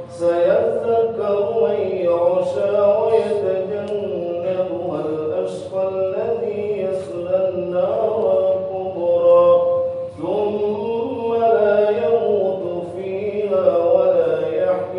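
A man's solo voice chanting Arabic Quran recitation in an ornamented melodic style, holding long, wavering notes phrase after phrase, with a short breath break about ten seconds in.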